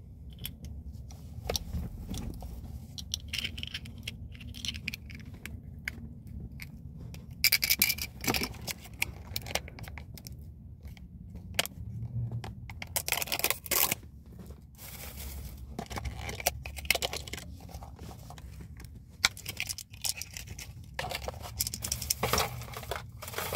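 Plastic candy wrappers and packaging being handled: irregular crinkling, rustling and crackling, with louder bursts of crinkling about eight, thirteen and twenty-two seconds in, over a steady low rumble.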